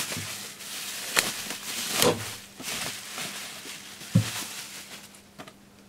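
Bubble wrap rustling and crinkling as it is pulled off a box, with a few sharp clicks from the handling; the rustling dies away over the last couple of seconds.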